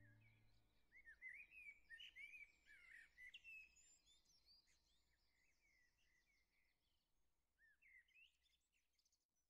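Faint birdsong: small birds chirping and twittering, busiest in the first few seconds with another short flurry about eight seconds in. A held musical chord fades out in the first second.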